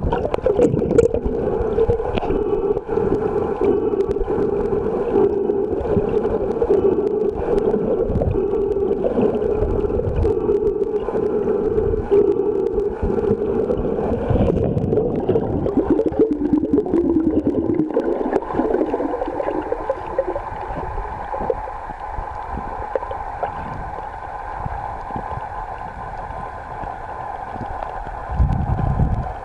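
Muffled underwater noise picked up through a camera housing: water rumble with a steady drone that dips in pitch and fades about two-thirds of the way in, leaving a quieter hiss.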